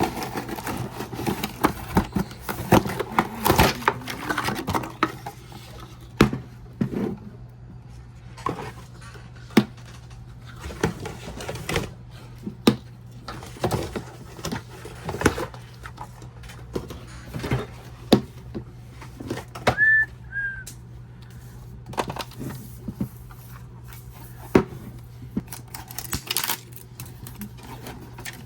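Irregular clicks, taps and clatters of toy packaging being handled and opened, over a steady low hum.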